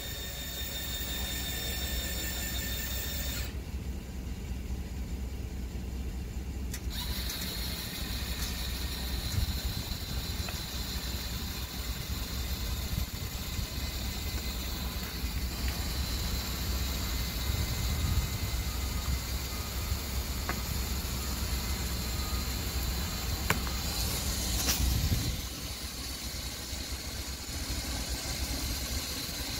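A steady low mechanical rumble, a little quieter from about 25 seconds in.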